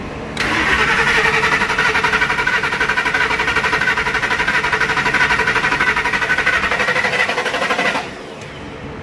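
Ford SVT Lightning's supercharged V8 cranked over on the starter without firing, fuel pump relay pulled, for a compression test. A steady, rapidly pulsing cranking sound starts about half a second in and stops about a second before the end.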